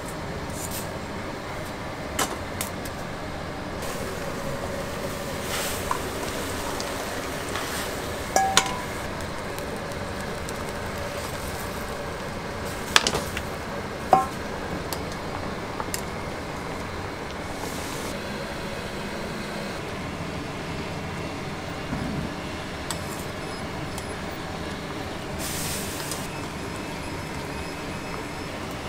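A large steel pot of water boiling hard on a gas burner: a steady rushing bubble and hiss. A few sharp metal clinks break in, the loudest about halfway through.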